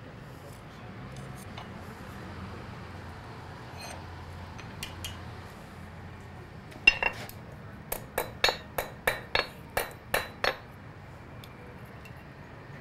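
Blacksmith's hand hammer striking hot iron on a steel anvil: a few faint metal clinks of tongs and tools, then a single sharp blow about seven seconds in, followed a second later by a quick run of about nine ringing blows, roughly three a second.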